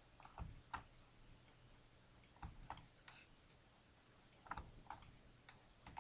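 Faint, irregular clicks of a computer mouse and keyboard, some in quick pairs, as vertices are selected and moved in a 3D modelling program.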